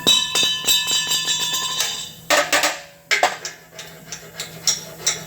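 Hammer blows on a steel gusset being knocked into place. The first strike leaves the metal ringing for about two seconds, two short harsh bursts follow in the middle, and then a steady run of sharp strikes comes at about two to three a second.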